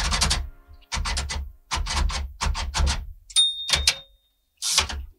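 Typewriter-style typing sound effect: about six quick bursts of key clacks, with a short high ding about three and a half seconds in.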